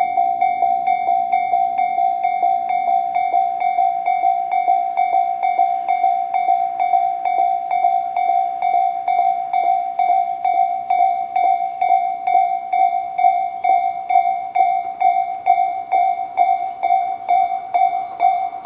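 Japanese level-crossing electronic warning bells of the Tobu type ("Tobu sound C") ringing on both sides of the crossing. It is a steady, repeated ding at about two and a half strikes a second, the signal that a train is approaching and the crossing is closed.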